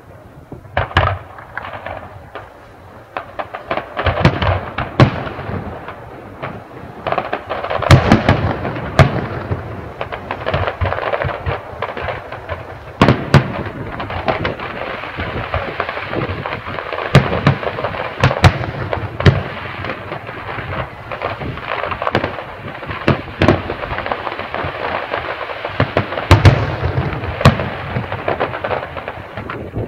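Fireworks display: a steady run of sharp bangs and crackling bursts, each bang trailing off into a rumble. The bangs come thickest about eight seconds in and again near the end.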